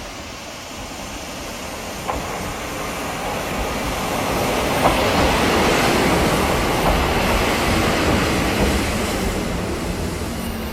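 Interior running sound of a JNR 70-series electric multiple unit with nose-suspended (tsurikake) MT40A traction motors. It grows steadily louder over the first five seconds or so, then holds, with a sharp knock about two seconds in and another about five seconds in.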